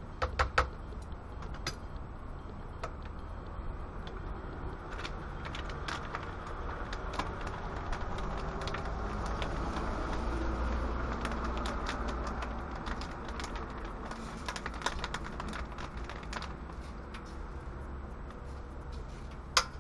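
Food sizzling and crackling in a frying pan on a portable gas stove, with scattered sharp pops throughout. There are a few metallic knocks of a spatula against the pan just after the start and a sharp click near the end. A low rumble swells and fades in the middle.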